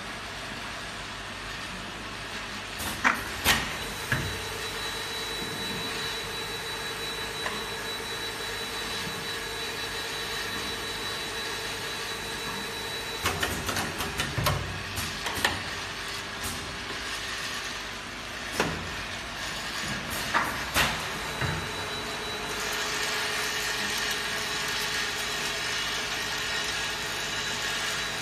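Automatic eight-head gear-pump liquid filling machine running: a steady mechanical hum with a mid-pitched pump whine that holds for several seconds at a time during filling, broken by clusters of sharp clacks as the pneumatic nozzle and bottle-stop cylinders move.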